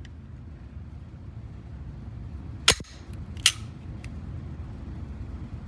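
Two 9 mm pistol shots from a Glock 17 Gen 5, a little under a second apart, echoing in an indoor range, over a steady low background rumble.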